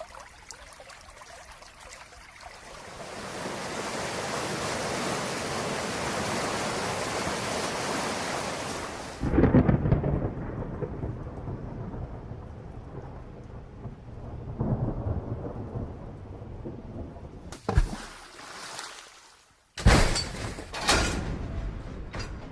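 Rain sound effect building to a steady downpour, then a sudden loud thunderclap about nine seconds in, with long rolling rumble and a second swell of rumble a few seconds later. Near the end come a few sudden, very loud cracks.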